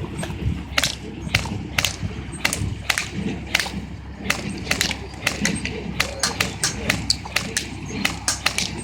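Airsoft gun firing a long string of sharp shots, one or two a second at first and coming quicker in rapid pairs and runs from about halfway.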